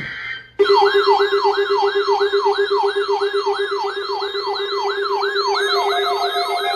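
Weather alert radio's built-in siren alarm, set off by the NOAA Weather Radio warning signal, starting about half a second in. It wails up and down about three times a second over a steady lower tone.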